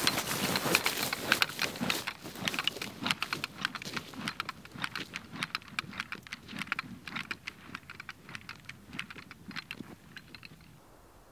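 Close, dense crackling and clicking, many irregular clicks a second, like dry vegetation crunching or gear being handled. It is loudest in the first couple of seconds, thins out, and stops shortly before the end.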